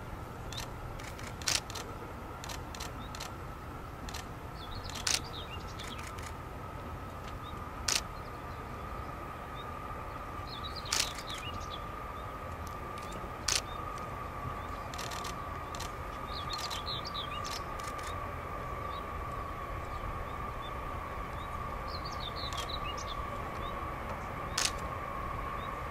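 Distant low rumble and steady whine of a Boeing B-52H's eight Pratt & Whitney TF33 turbofans as the bomber rolls out after landing, the whine slowly sinking in pitch. Sharp camera-shutter clicks come every few seconds, and birds chirp now and then.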